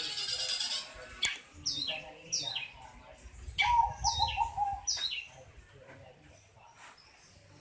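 Long-tailed shrike calling in an unusual way. A dense burst of chatter comes at the start, then a series of quick calls falling sharply in pitch, repeated about every half second to second, mixed with lower warbling notes. It quiets after about five seconds.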